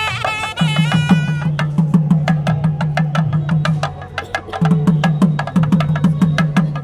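Music with a steady beat: repeated low drum strokes under fast, dry clicking percussion, with a pitched melody that drops out about a second and a half in.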